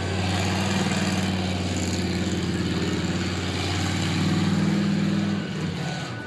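Boardwalk tramcar's engine running steadily as the tram pulls away, the drone dropping off about five and a half seconds in.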